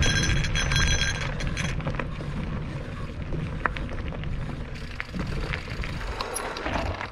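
Low rumble of wind and vibration on a camera moving along a dirt trail, with a ringing metallic tone through the first second or two; the rumble drops away sharply at the end.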